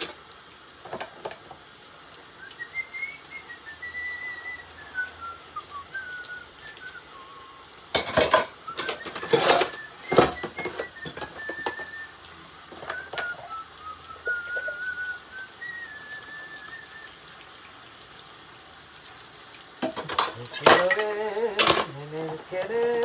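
A person whistling a slow, wandering tune one note at a time, while dishes and cutlery clatter as they are washed; the clatter comes in bursts about eight seconds in and again near the end.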